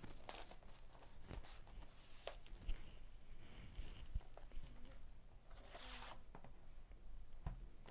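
Faint handling sounds of a film mediabook being turned over in the hands: scattered light clicks and taps, with a brief rustle of packaging about six seconds in.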